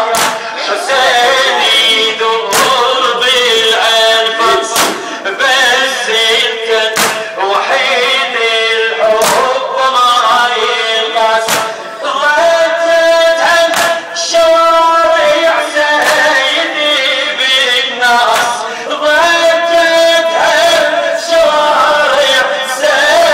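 Men chanting a Muharram mourning lament (latmiyya) with long held sung notes. Sharp chest-beating slaps in unison come every second or two.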